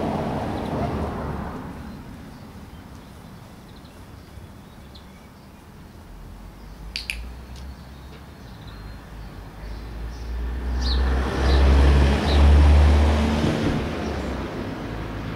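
Outdoor background noise: a low rumble that dies down, then swells again about ten seconds in, peaks and eases off. A sharp click comes about seven seconds in, and a few short high chirps follow around the loudest part.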